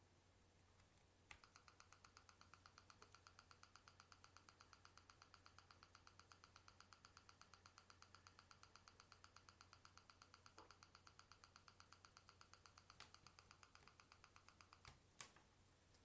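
Faint, rapid, evenly spaced electronic ticking from an Onda V972 tablet while it charges, about six clicks a second, starting about a second in and stopping near the end, with a couple of sharper clicks just before it stops. This is the fault noise that comes before the tablet freezes completely.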